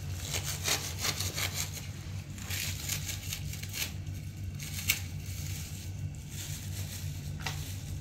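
Knife cutting up a raw whole chicken, sawing and cracking through joints and bones in irregular rasping strokes, one sharper crack about five seconds in, over a steady low hum.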